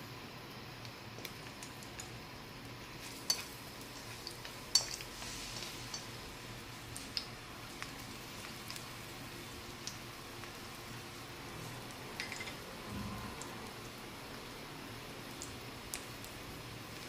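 Garlic and ginger frying in a little oil in a nonstick wok, a faint steady sizzle, with a wooden spatula knocking against the pan several times; the two loudest knocks come about three and five seconds in.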